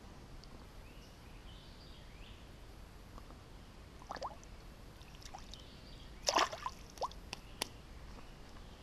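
Water splashing beside a kayak as a caught fish is let go: a short splash about four seconds in, then a louder splash a little after six seconds, followed by a few sharp knocks.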